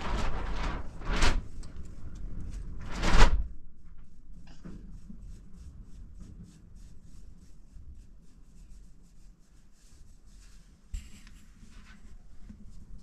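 A paintbrush scrubbing paint onto a sheet-metal door: a few loud strokes in the first three seconds, then quieter, quicker brushing with light ticks.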